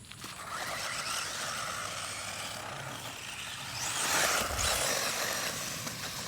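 Traxxas 1/16 Slash electric RC truck driving over rough ground: a steady hiss of motor and tyres that swells about four seconds in and then eases.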